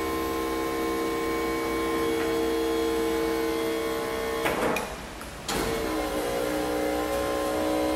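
Braun Millennium Series wheelchair lift's electric hydraulic pump motor running with a steady whine as the platform rises and folds up. About four and a half seconds in there is a clatter and the motor cuts out for about a second, then starts again at a slightly lower pitch.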